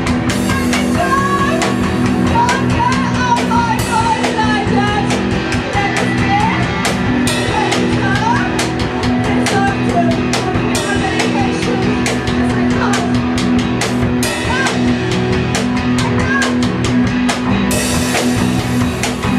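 Live improvised rock: a drum kit played in dense, fast hits under a steady low droning guitar, with a voice singing into a microphone. The cymbals get brighter and louder near the end.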